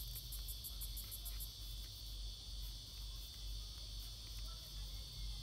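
Insects chirping in the background: a continuous high trill, with a fast pulsed chirping over it in the first second or so. A faint low hum lies beneath.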